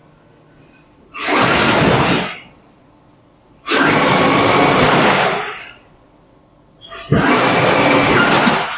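A motor run in three short bursts of about a second and a half each, with quiet pauses between; each burst starts quickly and fades away.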